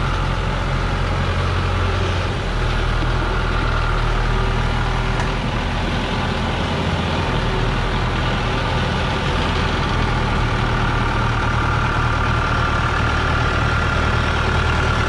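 Diesel engine of a loaded Dongfeng logging truck running steadily at low speed as it crawls over rocks in low gear, with a steady high whine above the engine that is strongest near the end.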